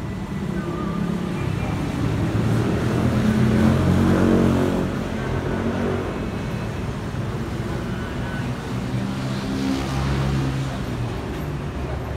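Jet airliner rumble from a Boeing 737-900ER's CFM56-7B engines passing overhead, mixed with road traffic; the sound swells to its loudest about four seconds in.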